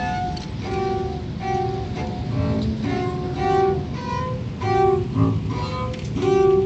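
Free improvisation on double bass played with a bow, with saxophone and a small drum, as a quick run of short, clipped notes.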